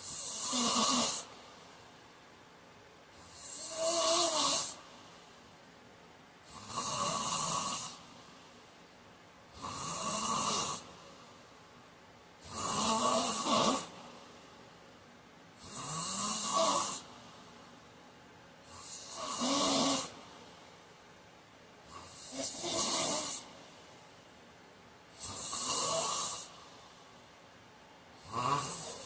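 A man snoring in sleep, a regular rhythm of about one snore every three seconds, each lasting a second or so.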